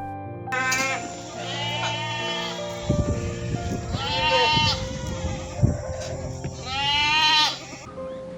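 An animal crying out repeatedly, three strong high-pitched calls of about a second each and a fainter one between them, over soft background piano music.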